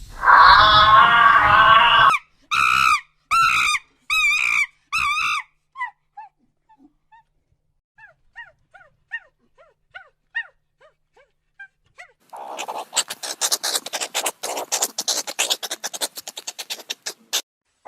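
A sequence of animal calls: a loud, long call, then five short wavering calls, a run of faint short chirps, and a fast chattering in the last few seconds.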